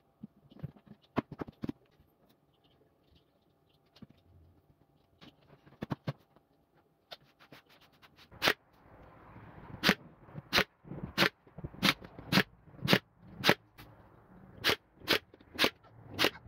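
Scattered knocks and scrapes of pine boards being handled and fitted into a frame. In the second half come sharp clicks about every half second, and a heavier, louder snap at the very end.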